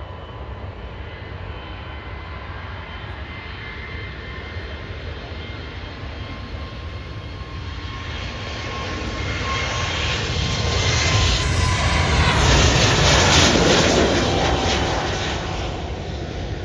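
Twin-engine Airbus A320-family jet airliner taking off, its turbofans at takeoff power. A steady engine whine grows steadily louder to a peak about twelve to fourteen seconds in, the pitch dropping as the jet passes, then begins to fade.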